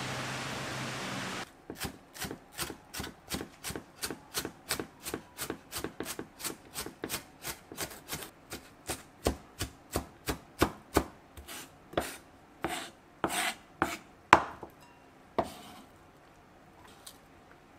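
Rain falling for a moment, then a chef's knife mincing onion on a wooden cutting board: quick, steady chops about three a second, slowing near the end to a few louder, spaced strikes.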